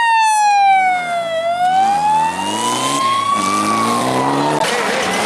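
A rally course car's siren wailing, its pitch sweeping slowly down, up and down again before it fades near the end. The car's engine is heard underneath as it drives past, rising in pitch.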